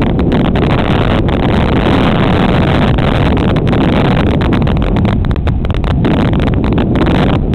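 Loud, steady static-like noise from a helmet-mounted HERO camera's poor microphone while cycling, mostly wind on the microphone.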